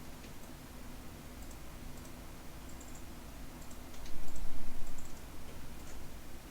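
Faint, scattered light clicks over a steady low hum, with a louder low rumble lasting about a second, around four seconds in.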